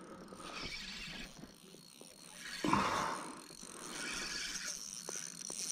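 Fishing reel being worked while fighting a hooked fish, its mechanism and drag making a light clicking, whirring noise that comes and goes, with a short louder sound about three seconds in.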